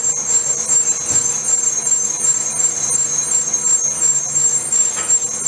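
Metal lathes running steadily in a machine shop, a constant high whine over a low hum, with a light metallic knock near the end.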